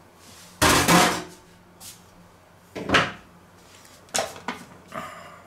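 Kitchen drawer sliding open and shut and utensils being handled: a loud scraping slide about half a second in, a sharp knock about three seconds in, then a few lighter knocks.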